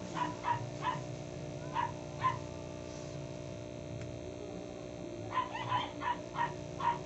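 A small dog yipping: about five short yips in the first couple of seconds, then a quicker run of about six near the end. A steady electrical hum runs underneath.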